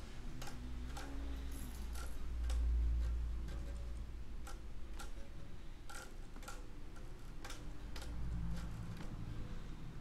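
Steady ticking, about two ticks a second, over a low hum.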